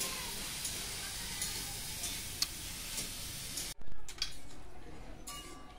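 Freshwater snail (gugli) shells clicking lightly as they are handled one by one, over a steady hiss. About four seconds in comes a single louder knock.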